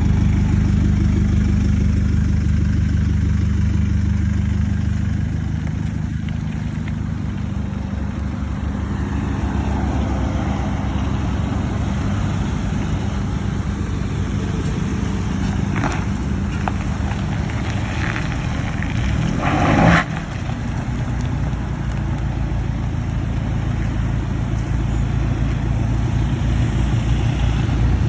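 Toyota Hilux pickup with a modified exhaust idling with a steady low rumble, with a short louder burst about two-thirds of the way through.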